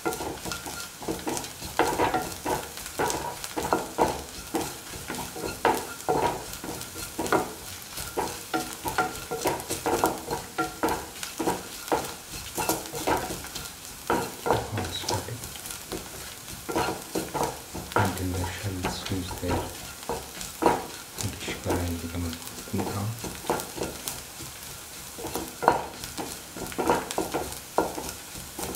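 Sliced shallots and dried Kashmiri chillies sizzling in hot oil in a pan while being stirred, with frequent short scraping strokes against the pan.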